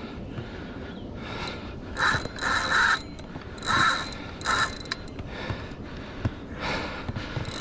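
Fishing reel working under the load of a hooked catfish, its drag and gears sounding in several short bursts about two to five seconds in, with a thin high tone running through each burst.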